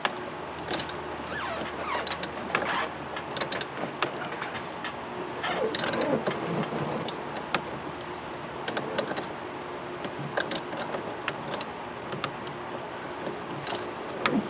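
Hand socket ratchet clicking in short, irregular bursts as a bolt is tightened down, with the tool rattling against metal in between.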